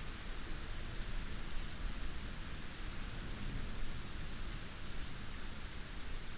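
Heavy rain falling steadily, a dense even hiss of drops with a low rumble underneath.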